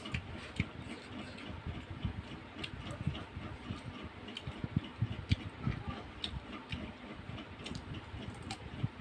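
Fork and spoon clicking and scraping against a plate and a steel bowl while noodles are eaten, in irregular light clicks and knocks, with chewing sounds.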